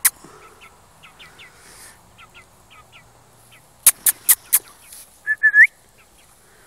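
Young Shamo chicken calling: a run of faint, short chirps, then a loud rising squeal near the end. Four sharp clicks come in quick succession just before the squeal.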